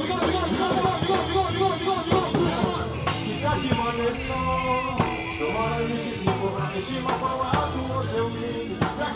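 Band music with a man singing into a microphone over a drum kit, electric guitars, bass and keyboard, with a steady beat.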